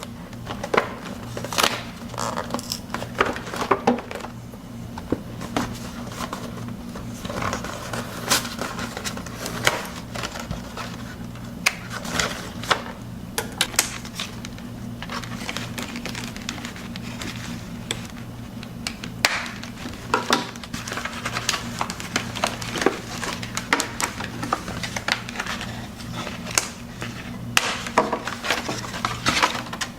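Cardboard box and plastic packaging being opened by hand to take out an action figure: irregular clicks, crackles and rustles throughout, over a steady low hum.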